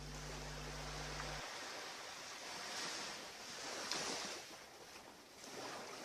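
Ocean surf washing on the shore, a steady hiss that swells twice in the middle and then eases off.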